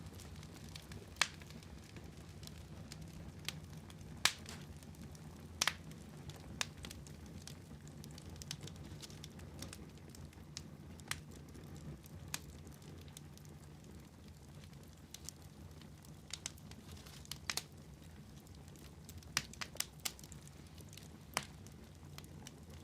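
Wood fire crackling in a fireplace: irregular sharp pops and snaps every second or so over a low, steady rumble of the burning.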